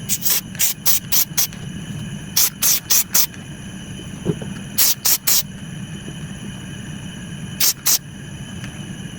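Short hissing puffs from a pressurised spray nozzle, fired in quick groups of two to four, about fifteen in all, over a steady low hum.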